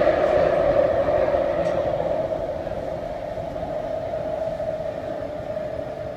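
SkyTrain car on Vancouver's Canada Line running through a tunnel, heard from inside the car: a steady rushing rumble with a strong steady hum in it, easing gradually quieter.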